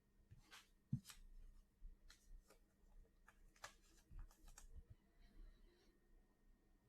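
Faint handling of baseball trading cards: soft clicks and rustles as cards are slid and turned over in a freshly opened pack.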